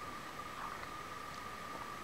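Quiet workshop background: a faint steady high-pitched whine over a light hiss, with a small click about half a second in.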